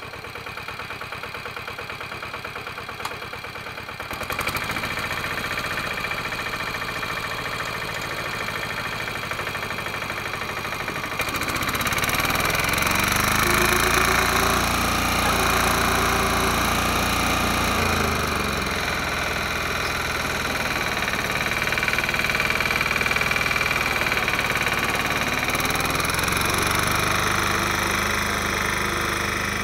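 Westwood diesel ride-on mower engine running: idling at first, revving up about four seconds in, then rising much louder about eleven seconds in as it works hard towing a heavy twin-axle trailer, its note wandering in pitch before holding steady under load.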